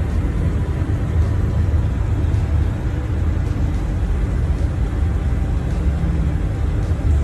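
Steady low rumble of road noise heard from inside a moving car or bus.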